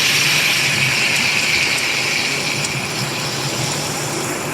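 Steady hiss of falling rain, easing slightly after the first second, with a low hum underneath.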